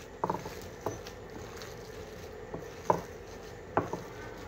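A hand in a plastic glove squishing and kneading a wet mashed-potato and chicken mixture in a ceramic dish. A few short, irregular squelches and taps stand out over a low steady background.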